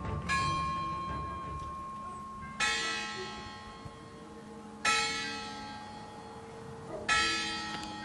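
A large bell tolling: four strokes about two seconds apart, each ringing out and slowly fading.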